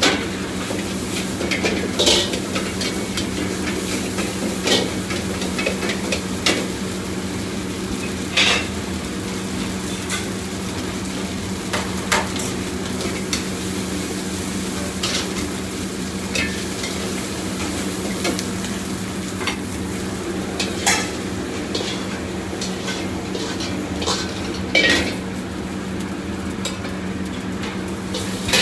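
Food stir-frying and sizzling in a wok, with a metal ladle scraping and clanking against the pan at irregular intervals. A steady low hum from the kitchen equipment runs underneath.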